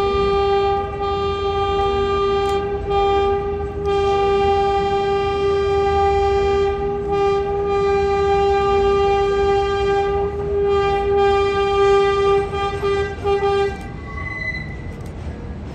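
Vintage R33/R36 New York City subway train's horn sounded in one long steady blast of about fourteen seconds, with a brief dip about four seconds in, then cutting off, over the low rumble of the approaching train.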